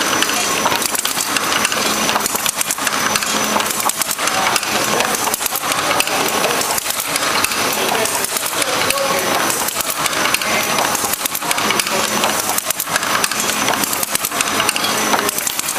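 Moll Vantage 720 folder-gluer running in production, feeding and folding large 34-inch crash-lock box blanks. It makes a loud, steady mechanical clatter: a dense stream of clicks and rattles from belts, carriers and cardboard, over a thin steady whine and a low hum.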